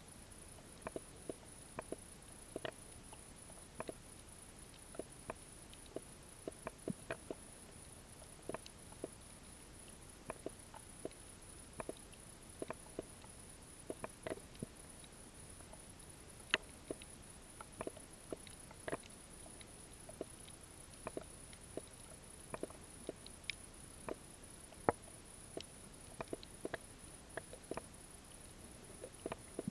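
Underwater soundscape over a seagrass bed: irregular sharp clicks and snaps, a few a second, over a faint steady hiss, with a thin steady high whine throughout.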